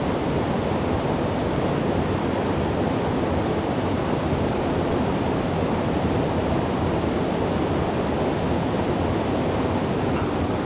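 Mountain river water rushing, a steady, unbroken wash of noise.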